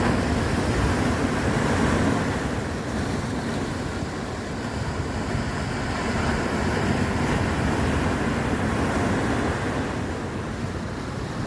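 Ocean waves breaking and washing on the shore, a continuous surf that swells and eases slowly, with wind buffeting the microphone.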